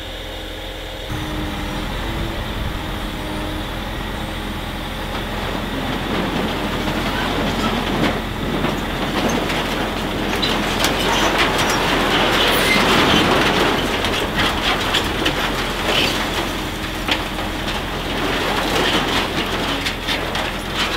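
DAF CF truck's diesel engine running up to drive its hydraulic grab crane, with the crunch and clatter of scrap corrugated roofing iron as the grab bites into the pile and lifts it. The engine steps up about a second in, and the metal clanking grows busy from about six seconds on.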